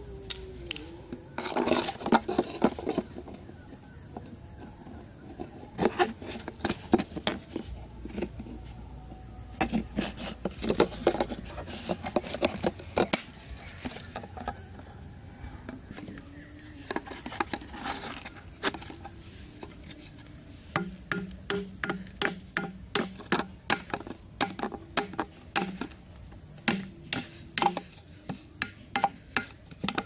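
A clear plastic soda bottle being handled and worked with a thin bamboo stick pushed through it: irregular crinkles, clicks, taps and scrapes of plastic and wood, coming in several bunches.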